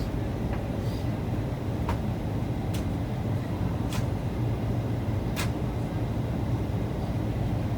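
Steady low rumble and rush of an airliner cabin in flight, from the jet engines and airflow, with a few faint sharp ticks scattered through it.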